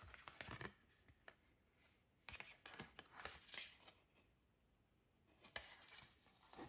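Faint rustling and crinkling of a stiff folded card brochure being handled and opened, in three short spells with light clicks of fingernails on the card.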